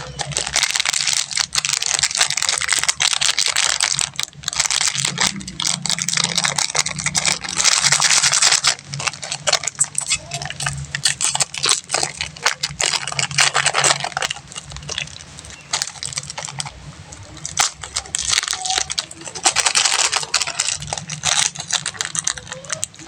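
Plastic candy wrappers being crinkled and torn open close to the microphone: dense crackling with a few brief pauses.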